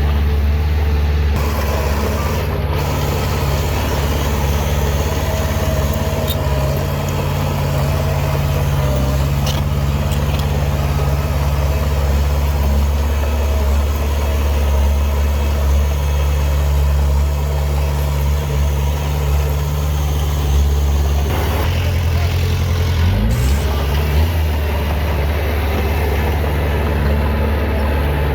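Heavy earthmoving machine's diesel engine running steadily with a low drone. About three-quarters of the way through, the engine note changes and briefly rises in pitch.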